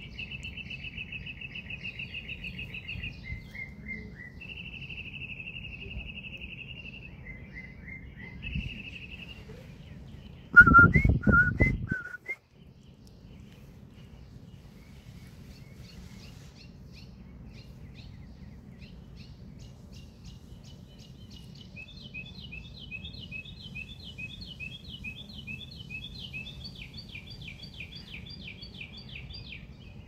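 Songbirds singing in the trees: long fast trills at the start, then rapid repeated chirping phrases through the second half. About a third of the way in comes the loudest sound, a brief rumble close to the microphone with three short whistle-like notes.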